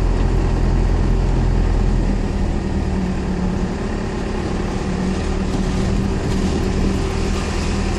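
Cummins 4BT four-cylinder turbo diesel in a Ford F-150 running steadily while the truck rolls slowly along a dirt road, heard from inside the cab. The low engine drone eases off a little about two seconds in.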